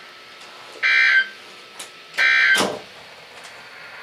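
Emergency Alert System end-of-message data bursts from a NOAA Weather Radio broadcast: short, loud, buzzy digital warbles over a steady radio hiss. One ends just as the sound begins, and two more follow about a second and two seconds in, signalling the end of the winter storm warning message.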